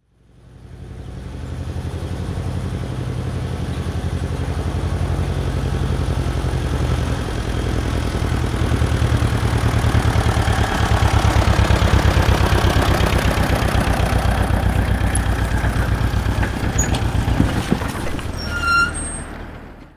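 Tractor engine running with a steady, fast-pulsing throb, fading in at the start and out at the end. A brief high beep sounds shortly before the fade-out.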